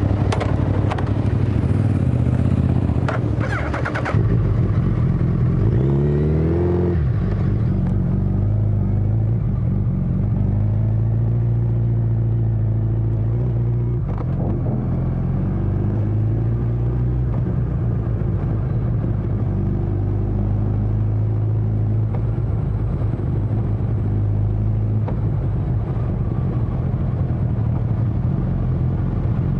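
Suzuki GSX1300R Hayabusa's inline-four engine running under way, with a rise in revs about six seconds in, then holding a steady drone.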